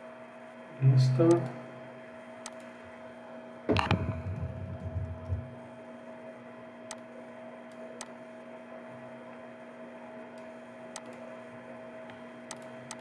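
Steady electrical hum on the recording, with a few faint clicks as the mouse and keyboard are worked. A brief voice sound comes about a second in, and a louder thump with a low rumble comes about four seconds in.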